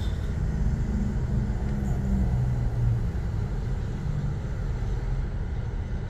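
2005 Hyundai Sonata's 2.4-litre four-cylinder petrol engine idling, heard from inside the cabin as a low rumble. The engine has a dead misfire on cylinder four, which is getting no spark.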